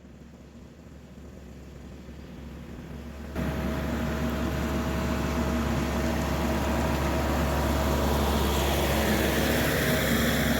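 Kioti RX7320 tractor's diesel engine running steadily with a low hum. The sound jumps suddenly louder about three seconds in, then holds steady.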